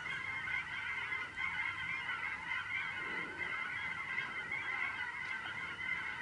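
A flock of geese honking far off, many calls overlapping in a continuous chatter.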